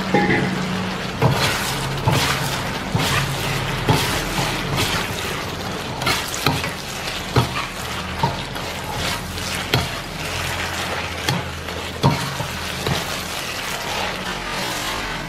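Fried chicken pieces being stir-fried in a thick sauce in an iron wok: a steady sizzle, with a metal spatula scraping and knocking against the wok at irregular moments.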